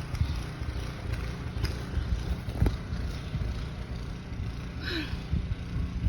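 Wind buffeting the microphone during a snowstorm: a gusty low rumble that rises and falls unevenly. A brief high squeak sounds about five seconds in.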